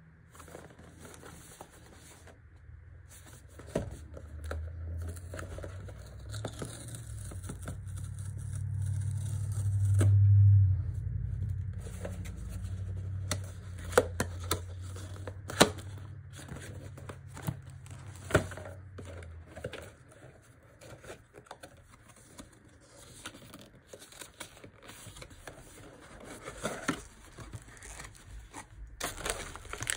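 Cardboard blind box being torn and prised open by hand, with paper tearing, flaps clicking and scraping, and, near the end, crinkling of the wrapping around the figure. A low rumble swells over the first half, loudest about ten seconds in, then fades.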